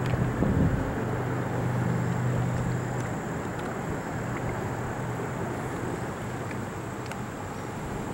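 A steady, distant engine drone. A low hum in it fades about three seconds in and comes back near the end.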